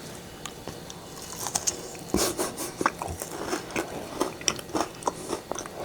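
Someone bites into a no-bake cookie of Lucky Charms cereal and marshmallows, then chews it with many small crunches from the cereal. The bite, about two seconds in, is the loudest sound.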